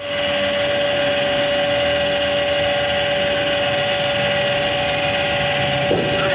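Electric automatic pipe threading machine running steadily, its motor and gears giving a constant whine while the die head cuts a thread on a pipe. A short scrape near the end.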